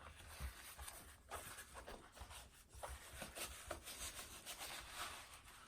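Goalkeeper glove being pulled onto a hand: fabric and latex rubbing and rustling in a run of short, irregular scrapes.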